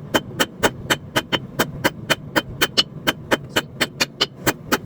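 Hammer striking hot steel on an anvil in a fast, even rhythm of about five blows a second, some in quick pairs, each with a short metallic ring, over a steady low hum.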